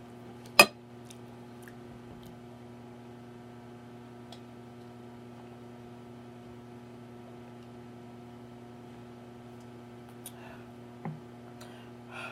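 Steady low electrical hum, with one sharp click about half a second in and a few faint clicks and small scrapes near the end.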